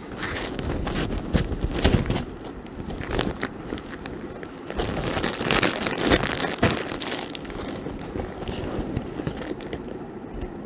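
Rustling and crinkling of a folded blanket and linens being stuffed into a shiny nylon tote bag, the fabric handled in two busier spells, near the start and again about five seconds in.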